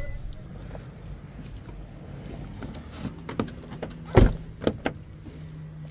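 Vehicle engine idling quietly with a low steady hum, with a few sharp clicks and knocks between about three and five seconds in, the loudest just past four seconds.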